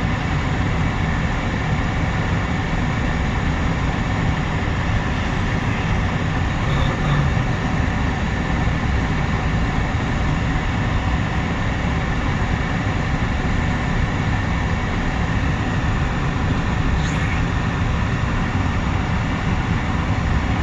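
Mixed freight train rolling steadily past, its cars' wheels running on the rails in a continuous even rumble.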